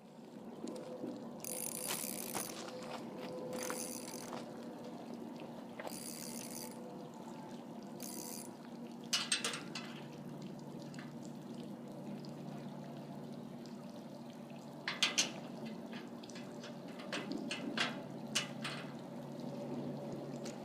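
Steady trickling, lapping water at a pond edge, with a few brief rustles early on and several sharp clicks about halfway through and again near the end.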